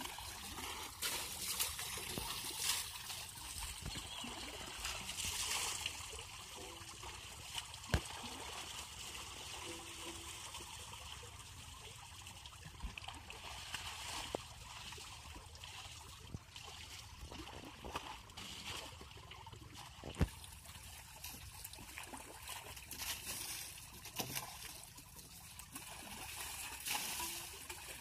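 Pond water poured by hand from a mug and bucket over a tractor, trickling and splashing as it runs off into the pond. Two sharp clicks stand out, one about eight seconds in and one about twenty seconds in.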